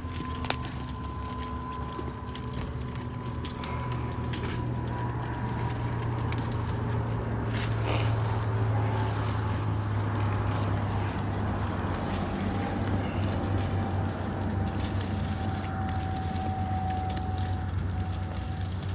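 A vehicle engine runs steadily with a low hum and a thin whine that slowly falls in pitch. Over it come scattered rustles and snaps from lemon branches and leaves as fruit is picked by hand, with a brief crackle about eight seconds in.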